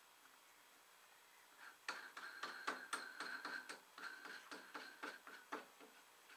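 Small metal parts clicking and scraping against each other at a lathe: a run of about a dozen sharp, irregular clicks with a faint ring, starting about two seconds in and stopping near the end, as a freshly cut thread is checked by hand.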